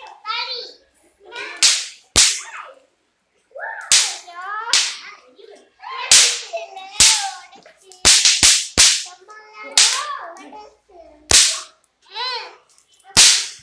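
Sharp, loud cracks of small Diwali toy crackers going off one after another at uneven intervals, about a dozen of them, four in quick succession near the middle, amid children's shouting and chatter.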